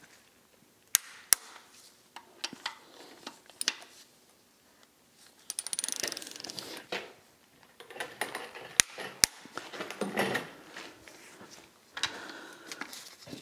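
Torque wrench working on the crankshaft main bearing cap bolts, tightened to 70 N·m: a quick run of ratchet clicks about six seconds in, and several single sharp metallic clicks scattered through.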